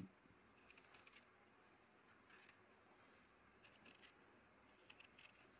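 Faint scraping of a metal vegetable peeler taking the skin off an apple, a few short strokes over near silence.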